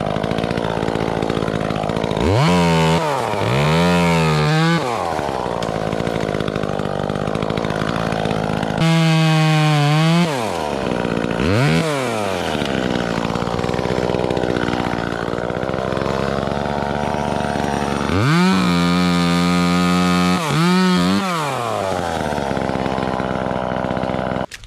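Chainsaw running and cutting, throttled up to full speed in about six short bursts, each rising steeply in pitch and falling back to a lower running speed between.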